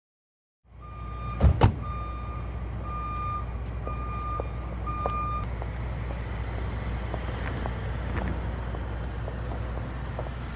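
A short silence, then two loud thumps about a quarter-second apart, followed by a vehicle's reversing beeper sounding five evenly spaced beeps. A steady low engine rumble runs beneath.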